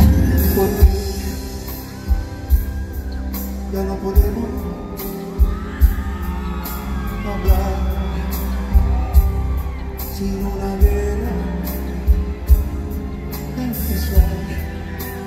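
Live band music over an arena sound system, heard from the crowd: a voice singing over sustained bass and keyboard chords, punctuated by heavy, irregularly spaced bass-drum hits.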